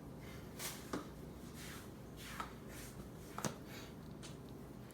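A few faint clicks and taps from kitchen utensils and a container being handled.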